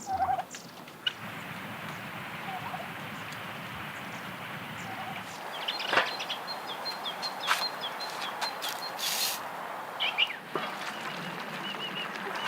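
Birds chirping over a steady hiss, with a few sharp clicks, the loudest about six seconds in.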